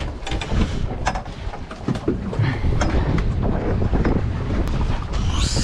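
Wind buffeting the microphone on an open fishing boat at sea, a constant low rumble, with several sharp knocks as the landed jewfish and the landing net are handled on the deck.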